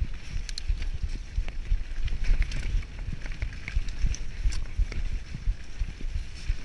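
Mountain bike riding fast down a dirt forest trail, heard from a camera on the rider: wind buffeting the microphone in low gusts, tyres running on the dirt, and the bike rattling over bumps with many small sharp clacks.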